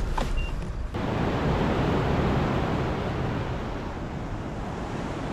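Rough sea surf washing against the concrete tetrapods of a breakwater, mixed with wind on the microphone: a steady rushing noise that sets in about a second in.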